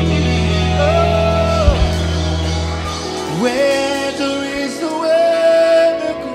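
Live gospel band with a male singer holding long, gliding notes. About three seconds in, the heavy bass and drums fall away and the voice carries on over a lighter backing.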